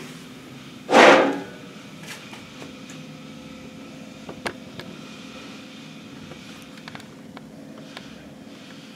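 Steady low background hum of a workshop, with one short, loud hiss about a second in and a few faint clicks later on.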